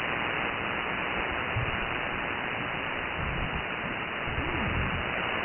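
Steady static-like hash of power line electrical noise (RFI) from an HF receiver's speaker audio on 40 meters in sideband mode, squeezed into the receiver's narrow voice band.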